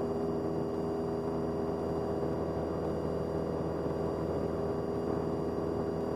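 Cessna 172's piston engine and propeller droning steadily at climb power, heard from inside the cockpit, with an even pitch and no change in level.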